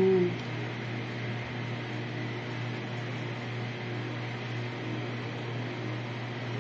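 Steady low electrical hum with an even hiss and a faint high whine, as from a running fan or appliance. A brief hummed vocal sound is heard at the very start.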